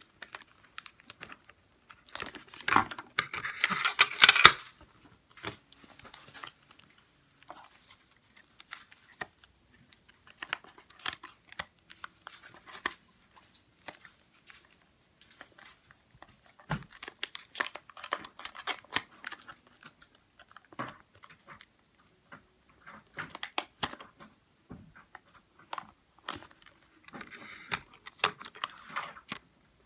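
Sticky tape being pulled off and torn, with paper rustling and small taps from handling on a tabletop; the loudest, longest pull of tape comes a few seconds in.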